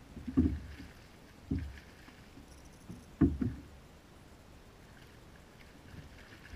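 Dull knocks and bumps on a plastic kayak hull, three of them in the first three and a half seconds, as a fishing rod, reel and landing net are handled aboard.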